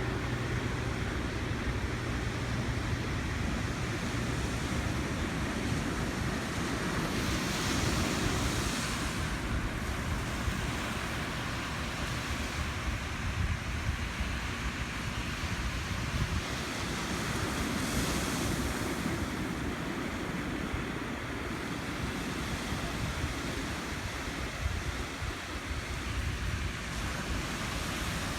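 Ocean surf on a beach: a steady wash of waves, with two louder breaking waves rushing in about a third and two thirds of the way through. Wind buffets the microphone with a low rumble.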